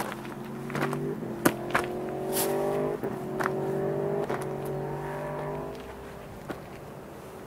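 A motor vehicle's engine running for about five seconds, its pitch drifting slightly, then dying away near the end. A few sharp clicks sound over it.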